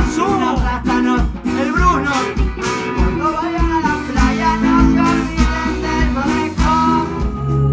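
Live band playing: drums keep a steady beat under trombone, trumpet, electric guitar and a singing voice.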